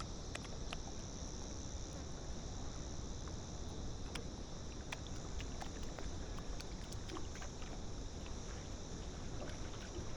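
Outdoor riverside ambience: a steady low wind rumble on the microphone and a steady high hiss, with scattered small sharp ticks, likely water lapping at the bank.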